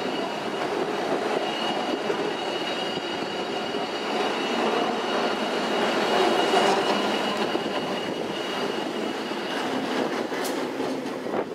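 San Francisco cable car climbing the hill on its rails: a steady rattling rumble with a constant high whine, growing louder as the car comes nearest about six seconds in. A single sharp click comes near the end.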